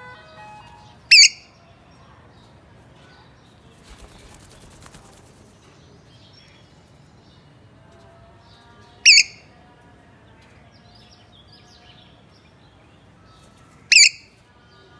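Parrot giving three short, loud, high-pitched calls several seconds apart.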